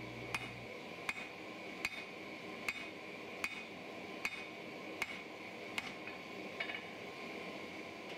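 Rounding hammer striking a hot three-layer san mai steel billet on an anvil, planishing it flat and drawing it out: steady single blows a little over one a second.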